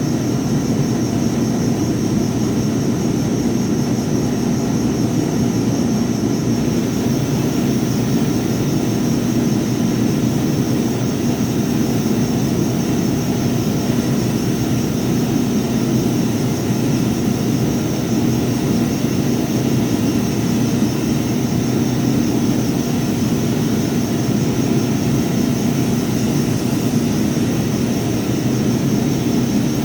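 Power sander running steadily, a continuous whirring drone.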